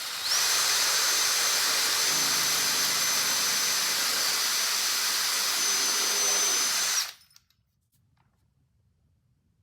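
Electric drill running at speed with a steady high motor whine as a 3/32-inch bit bores through a metal door hinge, meeting little resistance; it stops abruptly about seven seconds in.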